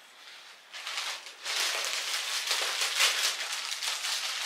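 Clear cellophane wrapping around a wicker basket crinkling and crackling as it is handled and pulled open. It starts about a second in as a dense rustle of fine crackles.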